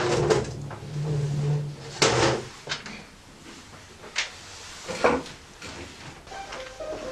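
A series of separate knocks and bumps of things being handled and moved, like drawers or cupboard doors being opened and shut. The loudest knock comes about two seconds in, with others about four and five seconds in.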